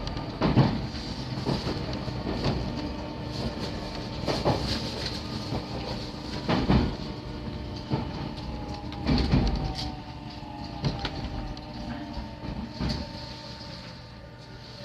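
JR 313 series electric train running over jointed rail, heard from inside the carriage: wheels clacking over rail joints at uneven intervals over a steady rumble, with a faint motor whine. In the second half the whine falls in pitch and the running gets quieter.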